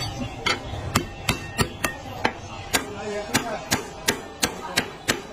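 Steel cleaver chopping through braised meat onto a thick wooden chopping block: a steady run of sharp knocks, about three a second, some fourteen in a row.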